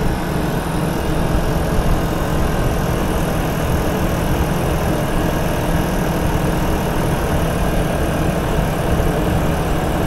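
BMW i8's air-conditioning compressor running with a steady, rough, abnormal noise. This kind of noise is the early sign of the compressor failing internally.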